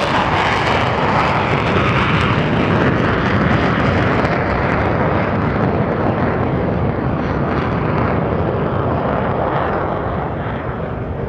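Two Saab JAS 39 Gripen C fighters' single Volvo RM12 turbofan engines at takeoff power, just after lift-off and climbing away together. The loud, steady jet noise gradually loses its high hiss and drops a little in level toward the end.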